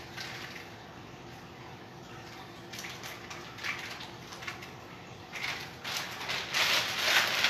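Intermittent crinkly rustling of a plastic piping bag being handled, growing louder and busier near the end.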